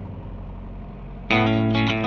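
Background music: a quiet fading stretch, then about a second in a loud electric guitar track with distortion kicks in.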